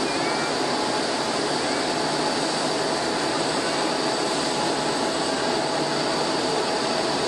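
Jet airliner engines running steadily: an even rushing noise with a faint high whine held on top.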